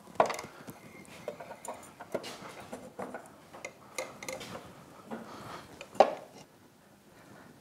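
Light knocks and scrapes of a Mercury 40 hp four-stroke outboard's lower unit (gearcase) being pushed up by hand into the midsection, with a sharp clunk at the start and a louder one about six seconds in.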